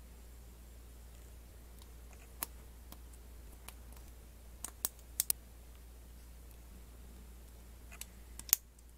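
LEGO Technic plastic parts clicking together as blue friction pins are pressed into a black Technic beam: a scattering of sharp, separate clicks, the loudest near the end. A faint low hum runs underneath.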